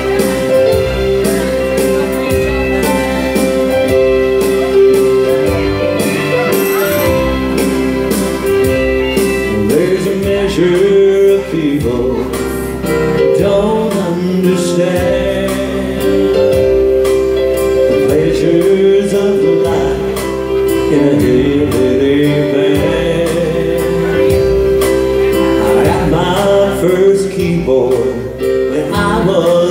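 Live country waltz played on an electronic keyboard with a backing rhythm, and a man singing over it.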